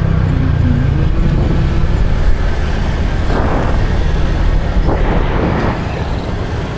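Steady low rumble of a vehicle on the move with road noise, with two louder rushes of noise about three and a half and five seconds in.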